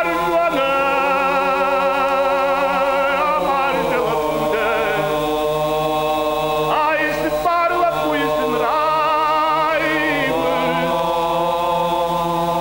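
Ossetian folk song sung by a male choir: a solo voice with vibrato over sustained choral chords and a low held drone. The chords shift twice.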